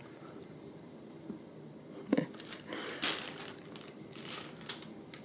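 Brown paper envelope crinkling and rustling under a cat's paws: a few short rustles, the loudest about two and three seconds in.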